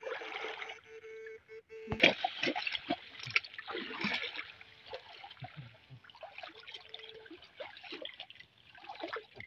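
Water splashing and sloshing as a person wades through a shallow, flowing creek, with irregular splashes from about two seconds in. A faint steady hum sits under the first couple of seconds.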